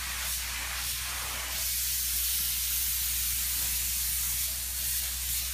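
A steady hiss with a low hum beneath it, growing slightly louder about one and a half seconds in.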